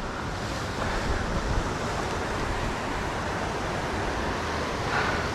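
Sea surf washing against a rocky shore, with wind on the microphone: a steady rushing noise.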